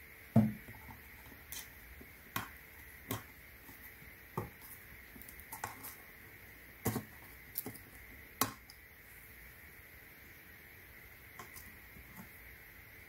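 Scattered light clicks and taps from a plastic oil bottle and the filler neck of an electric pole saw's oil reservoir being handled while oil is poured in. The loudest is a dull knock about half a second in.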